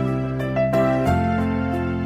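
Soft, slow background music with piano-like notes and sustained chords.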